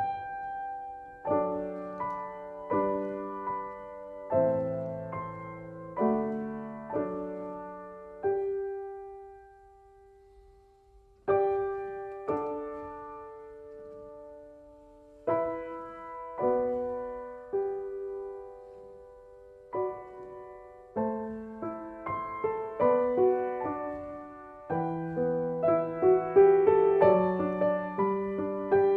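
Slow solo piano music: chords struck one at a time and left to ring out. There is a lull about ten seconds in, and the playing grows fuller and busier near the end.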